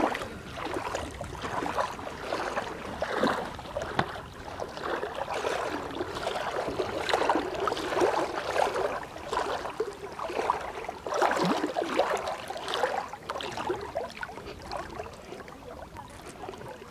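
Seawater sloshing and splashing close to the microphone in shallow sea, an irregular, continuous patter of small splashes and gurgles.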